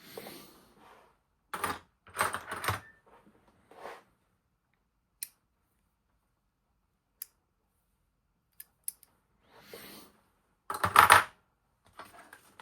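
Small metal watchmaker's tools clinking and clattering as they are handled, picked up and set down. The sound comes in short bursts of clicks and rattles with single clicks between them, and the loudest clatter is near the end.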